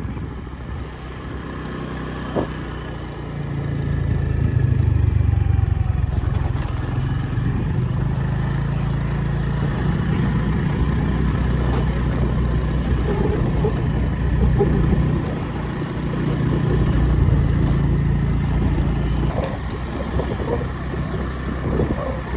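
Motorbike engine running while riding, with wind and road rumble. The sound grows louder about three seconds in, then eases and picks up again a few times.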